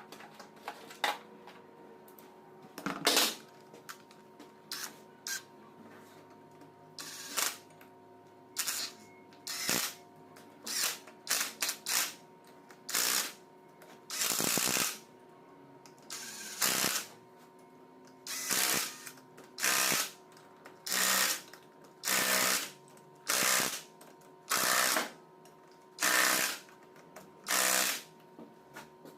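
A power tool run in repeated short bursts, each under a second: irregular at first, then a steady rhythm of about one burst every second and a quarter. A steady hum runs underneath.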